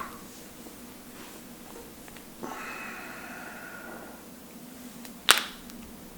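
A single sharp, loud joint crack about five seconds in, from a person cracking one of their own joints. It is preceded by a faint, drawn-out pitched sound lasting under two seconds.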